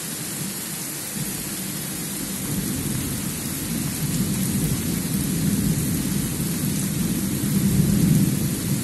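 Thunder rolling over steady heavy rain: a deep rumble that builds in waves and is loudest near the end, with the rain's hiss running underneath throughout.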